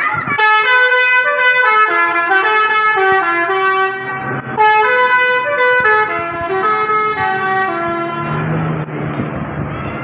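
Indonesian bus "telolet" musical air horn playing a tune of held notes that step up and down. The tune breaks off briefly about four seconds in, resumes, and fades about eight seconds in, leaving a lower steady sound and noise.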